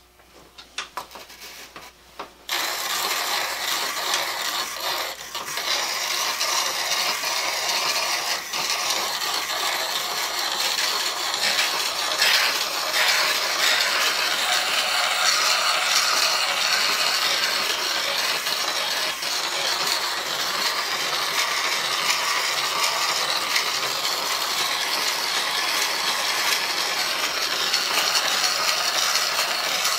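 Stanley No. 8 plane blade being ground on a treadle-driven sandstone grinding wheel: a steady grinding rasp of steel on stone mixed with the rattle of the treadle mechanism, starting about two and a half seconds in.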